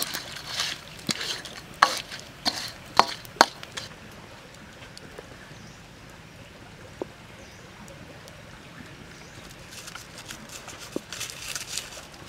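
A spatula scraping and knocking against a metal wok while shrimp are stirred, with a run of sharp scrapes over the first few seconds. Then a quieter stretch with a few isolated crackles from the wood fire, and more clicks near the end.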